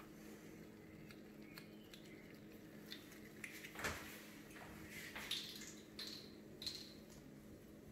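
Faint kitchen handling sounds: a few light taps and clinks around a plastic blender jar, the loudest about four seconds in, over a low steady hum.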